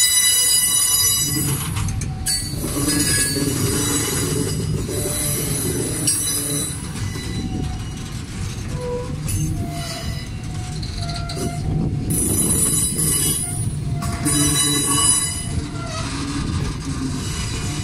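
Freight train of open wagons and container flats rolling slowly past, with a steady low rumble of wheels on rail. High-pitched wheel squeal comes and goes in stretches of a few seconds.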